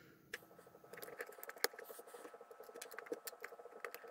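Faint small plastic clicks and taps as the parts of a small LED video light's plastic housing are handled and fitted back together, with one sharper click about a second and a half in.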